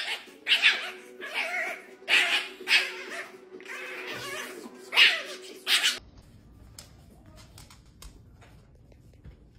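A small dog gives about eight short, high cries in quick succession over a steady music track. About six seconds in, the sound drops to quiet room tone with a few faint clicks.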